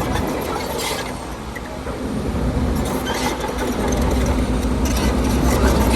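Heavy diesel engine of earthmoving machinery running, growing louder about two seconds in with a steady drone, with a few sharp clanks.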